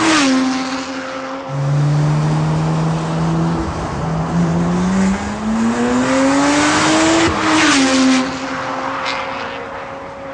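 BMW 1M Coupe's twin-turbo straight-six through an Akrapovic Evolution titanium exhaust, accelerating hard. The engine note climbs steadily through a gear, drops sharply at an upshift about seven seconds in, then fades away as the car pulls off.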